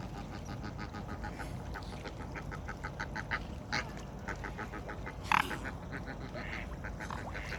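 Ducks quacking: a rapid run of short quacks, about five a second, with two louder calls, the loudest about five seconds in.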